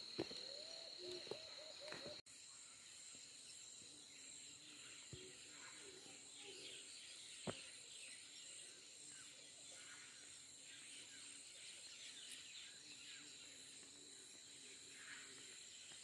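Faint insects and birds: a steady high-pitched insect drone with scattered chirps, and a bird repeating a short arched note several times in the first two seconds.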